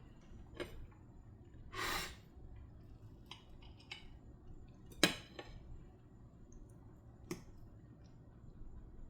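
Kitchen utensils and dishes knocking and clinking: several separate sharp knocks, the loudest about five seconds in, with a short noisy scrape about two seconds in.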